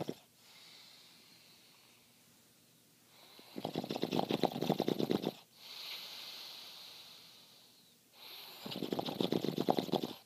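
A man snoring: two loud, rattling inhaled snores about five seconds apart, each lasting under two seconds, with softer breathing out in between. The snores have a bubbling flutter that sounds like someone taking hits from a bong.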